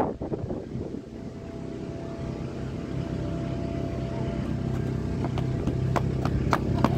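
An engine running steadily and growing gradually louder, its hum stepping in pitch now and then. Sharp clicks come at a fairly even pace from about five seconds in.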